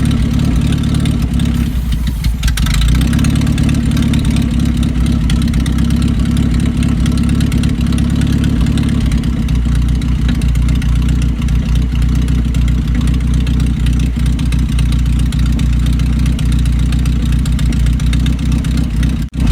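Four-cylinder carbureted engine of a 1982 Datsun wagon idling with a steady low drone, still a little raggedy. The drone briefly shifts about two to three seconds in, and there is a momentary dropout near the end.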